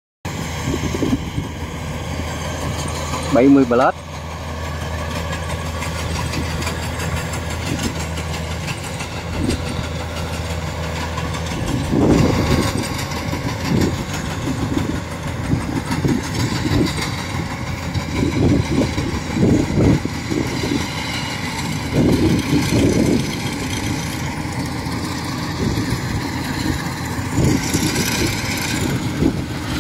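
Kubota DC-105X combine harvester's diesel engine and threshing machinery running steadily while it cuts rice, a constant drone with a high whine over it. About three and a half seconds in, a short loud rising sound stands out, and from about twelve seconds on, voices talk over the machine.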